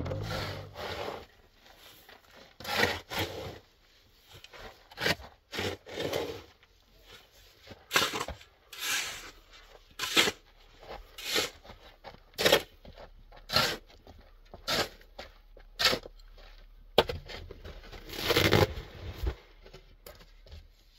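Shovel blade scraping and scooping into a pile of loose dark dirt, a gritty scrape about once a second, with one longer scrape near the end.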